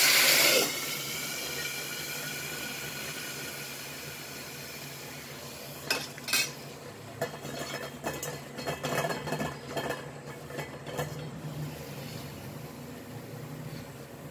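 Water poured into a very hot stainless steel pan of chopped onion and green chilli hisses loudly for about half a second, then settles into a fading sizzle. From about six seconds in come scattered clinks and knocks of the steel lid and ladle against the pan.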